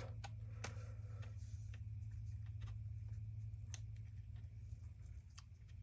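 Faint, scattered small clicks and ticks of hands working at the plastic housing of a cordless impact driver while peeling a sticker off it, over a steady low hum.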